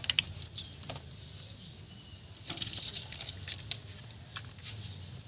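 Scattered light clicks and taps with a short scrape about two and a half seconds in, from metal parts and hand tools being handled during brake work.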